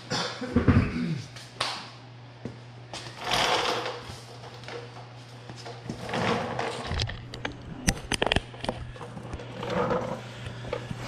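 Handling noises of tools and a camera being moved on a concrete garage floor: scuffs, knocks and a few sharp clicks about eight seconds in, over a steady low hum.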